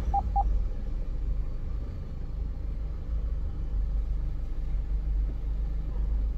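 Car engine idling, a steady low rumble heard from inside the cabin. Two short beeps sound right at the start.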